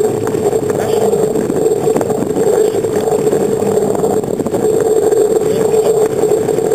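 Steady rushing drone of wind and rolling vibration picked up by a camera mounted on bicycle handlebars while riding along an asphalt path, with a few light clicks.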